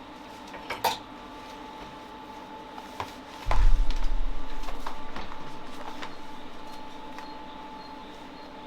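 Workshop handling noise over a steady machine hum: a few sharp clicks and knocks, then about three and a half seconds in a heavy low thump whose rumble dies away over about three seconds.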